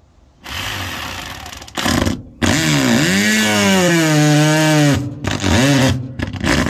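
Electric drill with a hole-cutting bit boring through the RV's metal floor, run in several stop-start bursts; its motor pitch sags and recovers as the bit bites into the metal.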